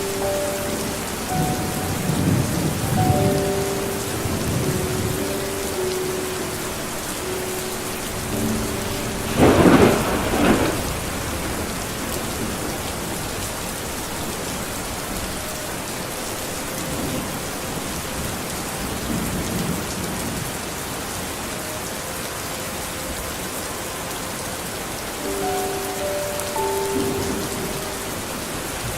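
Steady rain falling, with low rolls of thunder and one loud, sharp thunderclap about ten seconds in.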